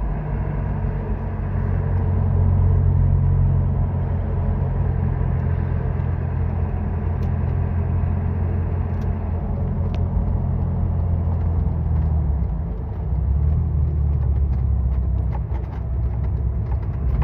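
Car engine and road rumble heard from inside the cabin while driving, a steady low drone that eases off briefly about two-thirds of the way through.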